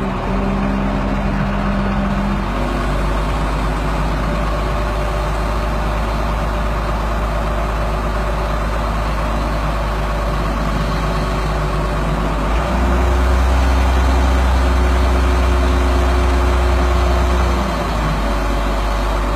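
Crane truck's engine running steadily as it drives the hydraulic crane lifting a boat. Just past the middle it revs up and runs louder for about five seconds, then drops back.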